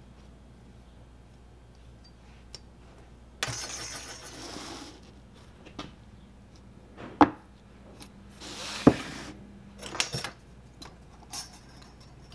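Metal parts of an arbor press being handled, clinking and knocking, with two sharp metal clanks about seven and nine seconds in. Two short stretches of hiss come around four and nine seconds in.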